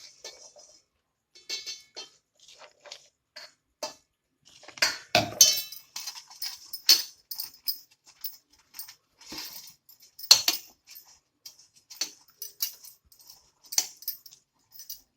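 Irregular clinks and short scrapes of a utensil against a plate as it is greased with ghee, with a louder scrape about five seconds in and another about ten seconds in.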